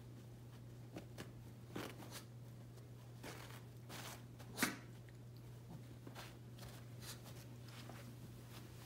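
Shih Tzu tearing and crinkling a paper towel with her mouth: scattered faint rustles and rips, the loudest about four and a half seconds in. A steady low hum runs underneath.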